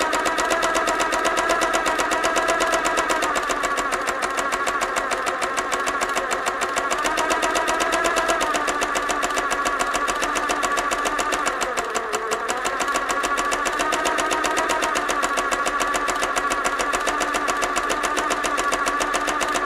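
Sewing machine running continuously at a fast stitching pace: a rapid, even clatter over a whirring motor tone. The pitch dips briefly about twelve seconds in, then comes back up.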